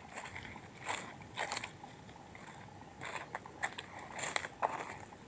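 Footsteps crunching and rustling through dry fallen rubber-tree leaves, in a run of short, uneven steps.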